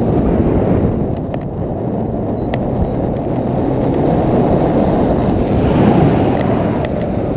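Wind rushing over the microphone of a foot-mounted GoPro Hero2 in its housing during paraglider flight: a loud, steady, low rushing noise of airflow.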